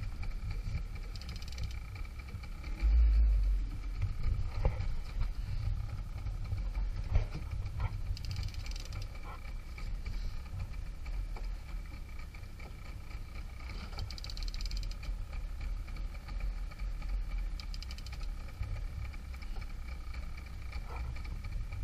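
Steady low rumble of wind and boat noise at sea, with a dull thump about three seconds in and short spells of higher hiss every few seconds.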